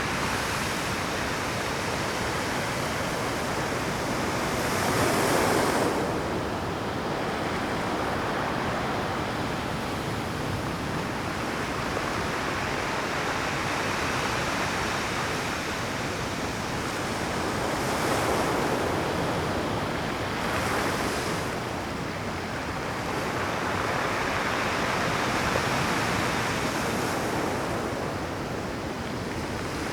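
Rough Pacific surf at high tide breaking against a rocky shore: a continuous rushing wash, with louder breakers crashing about five seconds in, twice around eighteen to twenty-one seconds, and again near twenty-six seconds.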